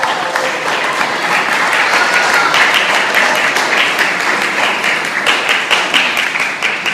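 Audience applauding, many hands clapping together in a steady patter.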